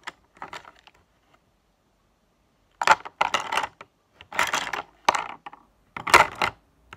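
A bunch of wooden coloured pencils lifted and dropped back into a plastic pot, rattling and clattering several times, with a pause before the clatters come thick and fast in the second half.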